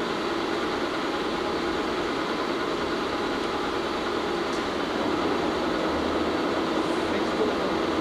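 1952 Bullard Cutmaster 36-inch vertical turret lathe running with a steady mechanical hum from its 30 hp main motor and drive. About five seconds in it gets a little louder as the chuck table comes up to speed, around 60 RPM.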